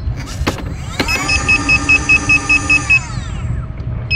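Gotway MSP electric unicycle's hub motor whining up as the wheel is spun with no load, holding a steady high pitch for about two seconds while the wheel's warning alarm beeps rapidly, then winding down. A single beep follows near the end.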